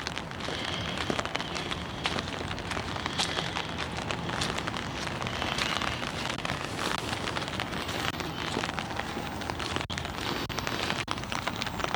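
Steady rain falling on an umbrella held just above the microphone: an even hiss of rain with many small, sharp drop ticks.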